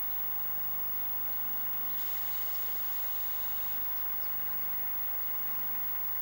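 Distant RENFE 321-series diesel-electric locomotive running as it hauls a train of hopper wagons, heard as a steady low hum under an even hiss.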